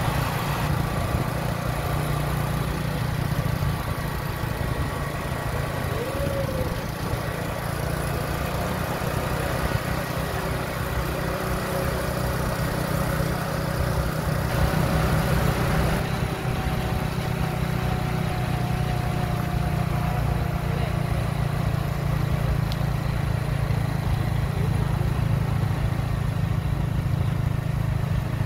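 Steady rumble of a motorbike ride: the engine running at an even pace, with road and wind noise on the microphone.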